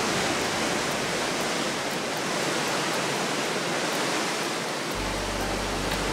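Steady rushing noise of churning wake water and air at the stern of a moving riverboat. A low steady hum joins about five seconds in.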